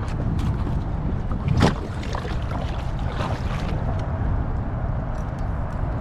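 Steady wind rumble on the microphone on a kayak on the water, with a few faint ticks and one brief, loud noise about one and a half seconds in.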